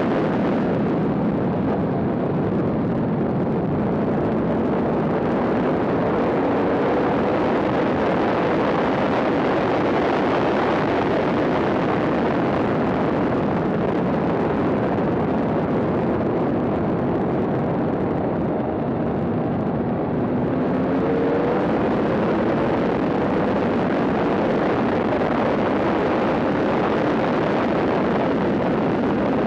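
Yamaha R1 sportbike's inline-four engine at racing speed under heavy wind rush on the microphone, its pitch rising and falling as the bike accelerates and slows through the corners.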